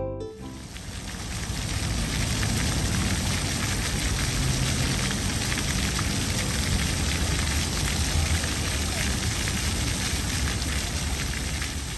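Ground-level fountain jets spraying and splashing onto wet paving: a steady hiss of falling water that fades in over the first second or two.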